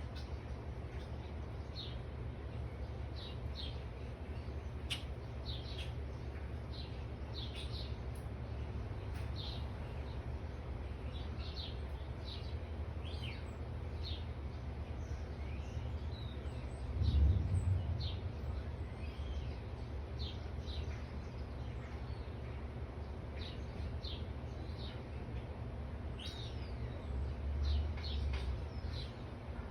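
Backyard birds chirping, many short high calls throughout, over a steady low rumble that swells briefly about halfway through and again near the end.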